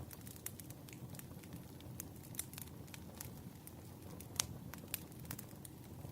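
Campfire crackling: irregular sharp pops and snaps of burning wood over a low steady rumble of flames, with one louder pop a little past the middle.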